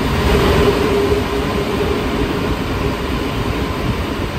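Cabin noise inside an Alstom NS-93 rubber-tyred metro train running between stations: a steady rolling rumble with a humming tone through it, strongest about half a second in.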